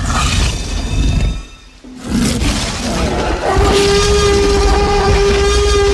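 Tyrannosaurus rex roar sound effect: a deep rumbling growl, then after a brief pause a long, steady, horn-like roar held for about two and a half seconds.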